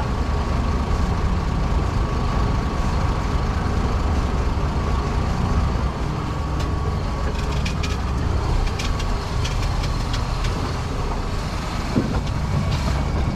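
Ship's anchor windlass heaving in the anchor chain, dragging the anchor across a workboat's deck: a steady low mechanical rumble with a faint whine, light metallic clinks in the middle, and a single knock near the end.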